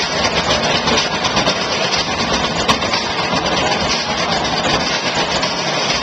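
Drum line playing a dense, continuous beat on barrels and buckets with clashing cymbals, over the noise of an arena crowd.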